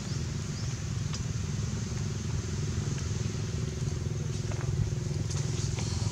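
Steady low engine hum with a faint steady tone in it, and a few faint clicks.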